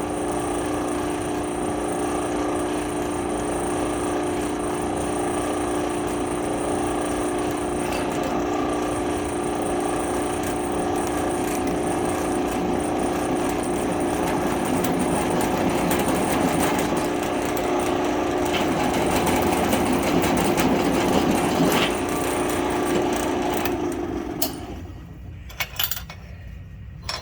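Drill press running at a slowed spindle speed while center-drilling a hole, a steady machine hum. About 24 seconds in it stops and runs down, followed by a few sharp clicks.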